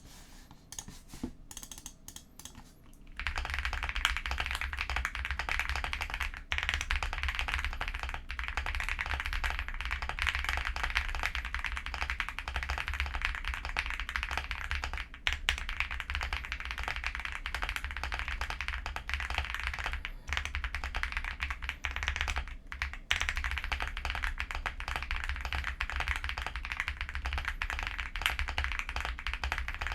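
Typing on an Epomaker x Feker Galaxy80 mechanical keyboard with lubed Akko V3 Creamy Purple Pro tactile switches and PBT keycaps. A few scattered keystrokes come first, then fast continuous typing from about three seconds in, with a few short pauses.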